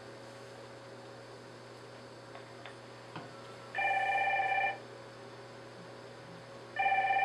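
Desk IP phone ringing with an electronic ring: two rings about a second long each, about three seconds apart, over a low steady hum, with a few faint clicks before the first ring.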